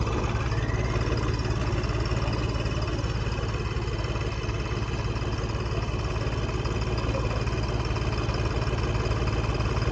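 Heavy diesel engine idling steadily with a strong low hum.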